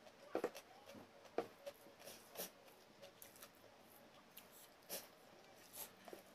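Faint, scattered soft clicks and squishes of fingers mixing cooked rice, canned fish and shredded cabbage on a wooden chopping board.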